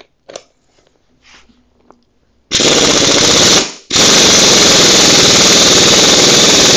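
Pneumatic impact wrench hammering on a freewheel remover, trying to unscrew a seized freewheel from a BMX hub. It comes in two bursts: a short one about two and a half seconds in, then after a brief pause a longer one of about three seconds. The freewheel does not break loose.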